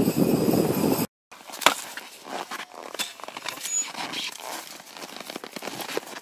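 A dog sled running over a snowy trail, a loud dense rushing noise that cuts off about a second in. After a short silence come scattered crunches and sharp clicks of footsteps on hard-packed snow and frozen fish being handled, with one louder knock soon after the cut.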